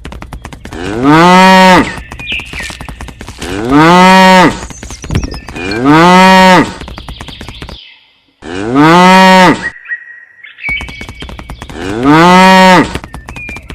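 A cow mooing five times, each moo about a second long and rising then falling in pitch. The calls are nearly identical, like one repeated sound effect, with a faint rapid ticking between them.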